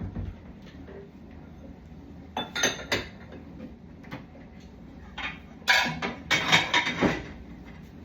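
Dishes clattering and clinking as they are handled and set down: a short clatter about two and a half seconds in, then a longer, louder run of clinks near the end.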